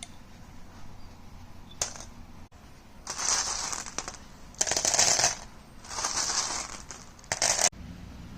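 Metallic rattling and jingling of brass cases or cartridges on a reloading bench, in four short bursts about a second apart, the loudest near the middle and just before the end.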